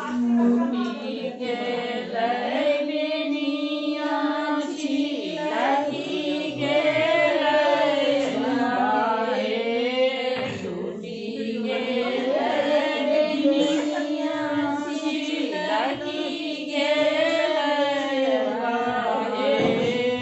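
Women singing together in chorus, long held notes that waver in pitch.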